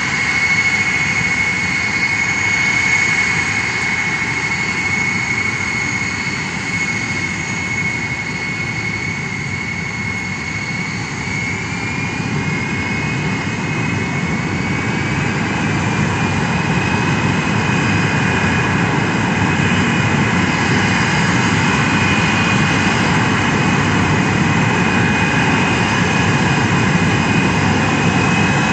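Ilyushin Il-76MD's four Soloviev D-30KP turbofans running loud, a rumble under a high-pitched whine. About halfway through the whine splits into two tones that climb a little and the sound grows slightly louder.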